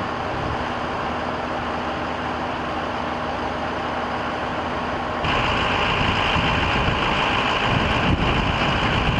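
A motor vehicle's engine running steadily under a constant rush of noise; about five seconds in the sound cuts abruptly to a louder, hissier rush.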